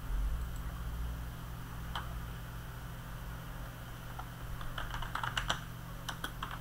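Typing on a computer keyboard: a single click about two seconds in, then a quick run of key clicks from about four seconds in, over a steady low hum.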